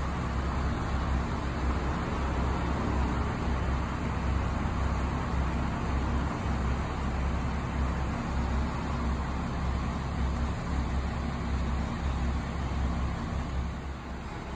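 Diesel railcar engine idling steadily while the car stands at the platform waiting to depart; the sound drops a little near the end.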